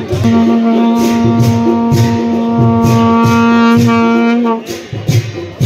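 Long straight traditional horns blowing one long held note over a steady drum beat. The horn note breaks off about four and a half seconds in while the drums play on.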